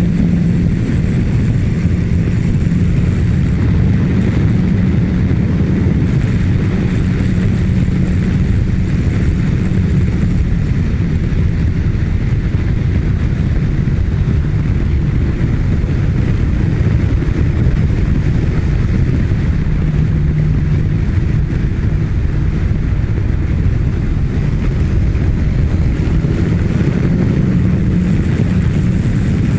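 Kawasaki Ninja1000SX inline-four engine at a steady highway cruise, a constant hum that sags slightly about twenty seconds in and then picks back up, under heavy wind rumble on the microphone from riding in a strong wind.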